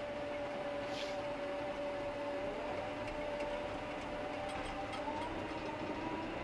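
Cat dozer running, heard from inside the cab: a steady mechanical hum with a high whine that rises in pitch about five seconds in. A brief hiss about a second in.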